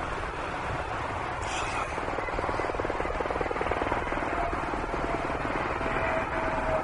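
Jet noise from an EA-6B Prowler's twin J52 turbojets: a steady rushing noise, with a faint whine coming in about halfway through.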